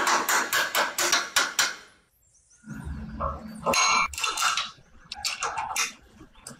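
A quick run of hammer taps on the steel swingarm pivot of a motorcycle frame, about eight blows in under two seconds. After a short break come metal clinks and a brief ringing clang as a steel rear sprocket is handled onto the hub.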